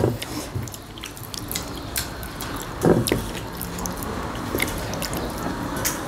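Close-up eating sounds: chewing and wet mouth noises, with small clicks and squishes as fingers mix rice and curry on metal plates. The loudest mouth sound comes about three seconds in.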